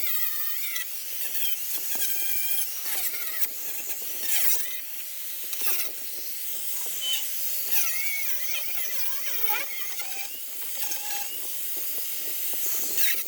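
Angle grinder cutting through the rusted sheet-metal running board of an SUV, with a harsh grinding hiss. Its motor whine keeps dipping in pitch and climbing back as the disc bites into the metal and frees up.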